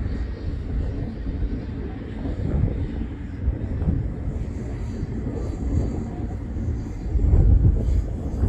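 Distant fireworks rumbling, a low irregular booming that grows louder near the end.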